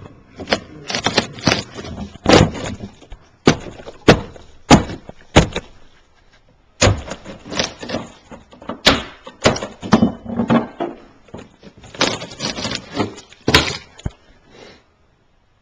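Irregular knocks and bangs on wooden cabinet framing, with scraping and rustling between them: cabinet demolition under a kitchen sink. There is a short pause about six seconds in, and the knocking stops about a second before the end.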